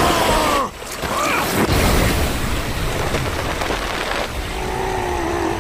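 Cartoon sound effect of a powerful rushing surge of water, a blast of water driven at a target, going on steadily.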